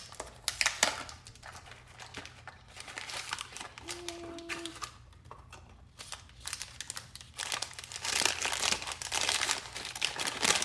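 A toy blind box's packaging being torn and crumpled open by hand: irregular crinkling and ripping, busiest in the second half.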